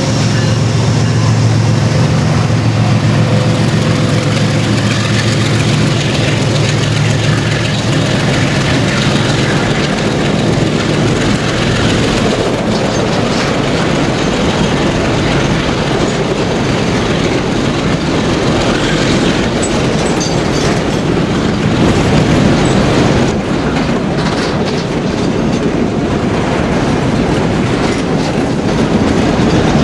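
Diesel locomotives of a freight train running as they pass close by, with a low steady engine hum that fades about eight seconds in. After that a long string of boxcars rolls past, wheels rumbling and clacking over the rails.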